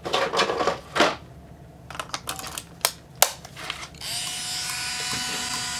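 A few sharp plastic clicks as the Minolta Freedom Zoom 140EX 35mm compact film camera is handled, then about four seconds in its small internal motor starts up and whirs steadily with a high whine.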